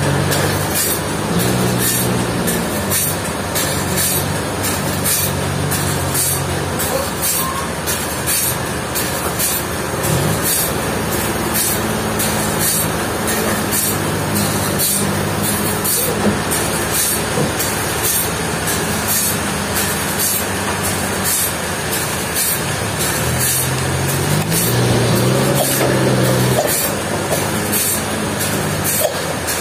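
Sawmill machinery running: a low engine-like hum that shifts pitch now and then as the load changes, over a steady rumble and a fast run of clicks and clatter.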